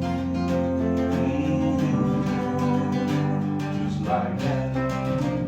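Instrumental music between sung lines: acoustic guitar strumming chords with a steady bass underneath.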